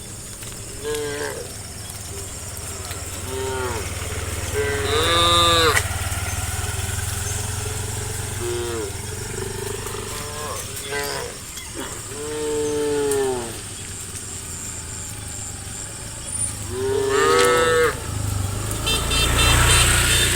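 Cattle mooing repeatedly, about seven calls that each swell and fall in pitch, the longest lasting about a second and a half. A steady low hum runs underneath. Near the end a rapid beeping and a louder vehicle sound come in.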